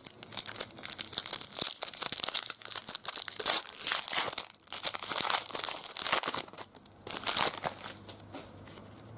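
Foil trading card pack wrapper being torn open and crinkled by hand: a dense, crackly rustle that dies down over the last second or so.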